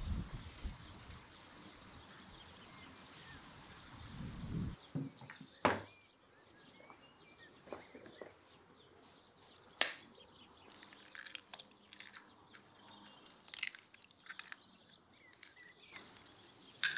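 Quiet outdoor ambience with faint bird chirping, broken by a few sharp clicks and knocks and some low thuds in the first few seconds.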